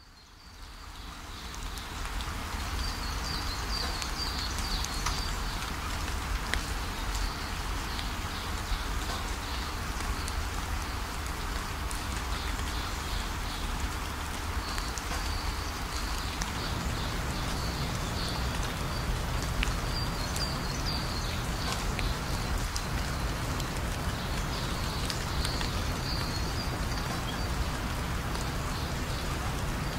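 Portable gas grill burners hissing steadily, with scattered crackles and pops, fuller in the low end a little past halfway. A high chirping comes and goes in the background.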